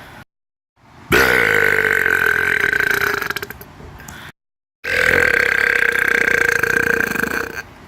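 A person belching on purpose: two long, drawn-out burps of about two and a half seconds each, both held at a steady pitch.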